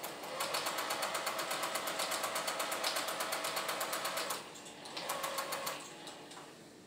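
Sewing machine stitching fast and evenly while chain-piecing quilt patches. A run of about four seconds is followed by a short pause and a second run of about a second, then it stops.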